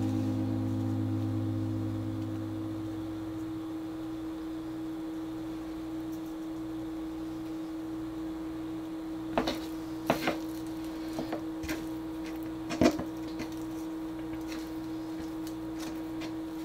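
Soft guitar music fades out over the first few seconds, leaving a steady hum. A few light taps and rustles come about halfway through, from fingers handling floured chicken pieces on cooking paper over a wooden cutting board.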